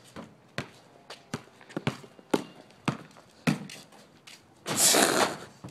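A basketball thumping on an asphalt driveway, along with running footsteps, a hit about every half second. Near the end comes a louder clatter as the dunk hits the portable hoop's rim and backboard.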